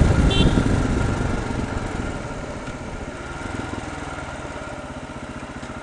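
Motorcycle running on the road, heard from the rider's helmet camera with wind rush. The sound eases off over the first two seconds, leaving the engine's steady low pulse.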